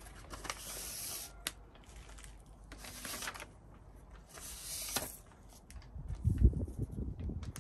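Kinesiology tape being peeled off its paper backing and pulled around the handle of a mini carpet kicker: three rasping pulls of a second or less each. Near the end comes a louder patch of low thumping handling noise.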